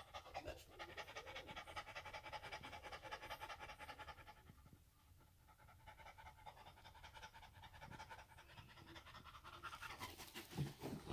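A dog in active labor panting rapidly, with a brief lull about halfway through. Near the end there is louder rustling and thumping as she shifts and bends down on the whelping pads.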